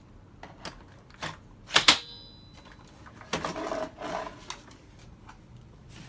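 Several light clicks, then two sharp clacks in quick succession with a brief high ringing after them, followed by about a second of scraping or rustling.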